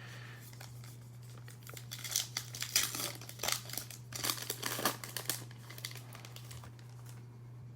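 A trading-card pack wrapper being torn open and crinkled by hand, a run of crackly rustles in the middle of the stretch, over a steady low electrical hum.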